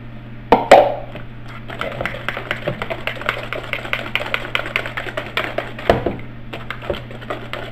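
Wire whisk beating thick cornbread batter in a plastic mixing bowl: quick, even clicking of the wires against the bowl, about five a second, with two louder knocks under a second in.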